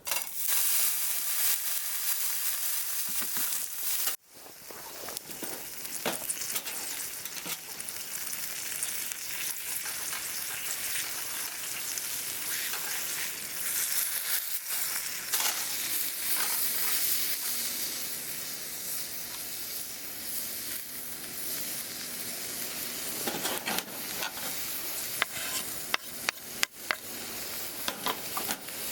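Steak sizzling over a campfire: a steady frying hiss with scattered small pops and crackles.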